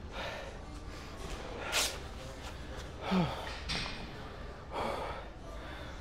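A man breathing hard after a strenuous lifting set: about five heavy, noisy breaths, one of them a short falling groan about three seconds in.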